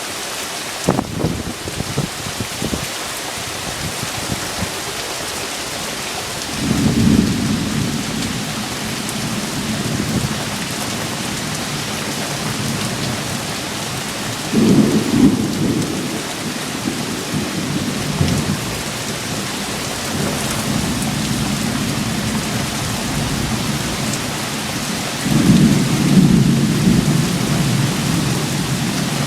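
Heavy rain pouring in a steady hiss through a thunderstorm, with three long low rolls of thunder: about a quarter of the way in, around the middle, and near the end. A few sharp taps sound in the first seconds.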